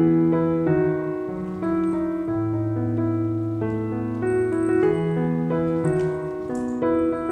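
Background piano music, with slow, held notes and chords.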